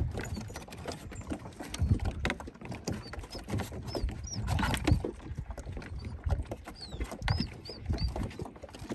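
A dog pacing on a wooden dock, its claws clicking and paws tapping on the boards, with lake water lapping against the dock. A few short, high chirps come through now and then.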